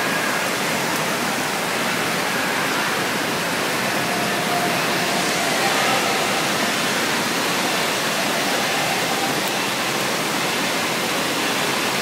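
Steady rush of falling and splashing water in an indoor water park pool, with faint voices here and there in the background.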